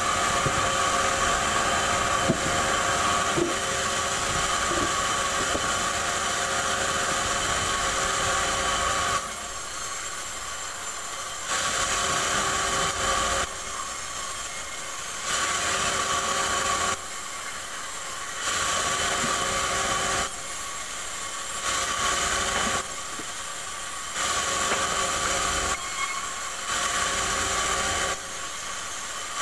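Sawmill band saw running and cutting rubberwood: a steady high tone under the rough hiss of the blade in the wood. About nine seconds in, the sound starts to swing between louder and quieter stretches every second or two as pieces are pushed through the blade.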